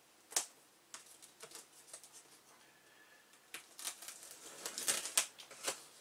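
Cardboard box flaps being handled: a scatter of sharp crackles and clicks, one strong one near the start and a busier run in the second half.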